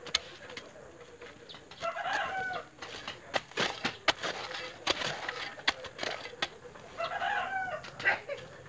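A rooster crows twice, once about two seconds in and again near seven seconds. Between and around the crows, a hand digging tool strikes the ground of a post hole in irregular sharp knocks.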